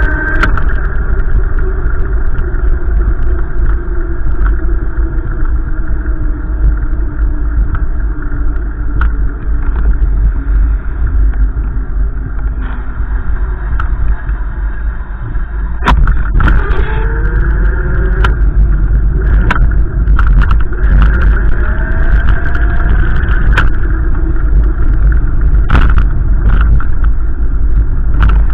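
Wind buffeting the microphone with a heavy low rumble, over a car driving, its engine and road tones rising and falling in pitch. A few sharp knocks come about halfway through and near the end.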